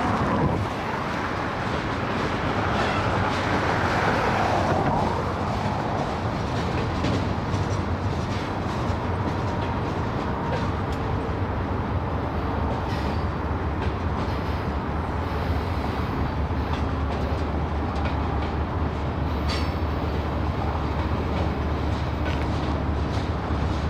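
Freight cars of a mixed freight train rolling past, a steady rumble of steel wheels on rail, a little louder for the first few seconds.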